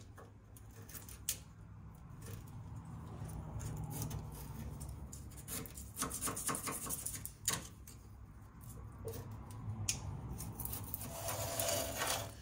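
Rag wiping and scrubbing the underside of a bus frame rail by hand: irregular rubbing strokes, quicker about six seconds in, with a few sharp knocks against the metal, over a low steady hum.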